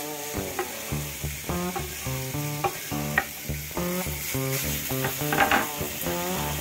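Background music with a plucked-string melody, over short scrapes and clicks of a chef's knife pushing chopped raw bacon off a bamboo cutting board into a frying pan, the loudest scrape near the end.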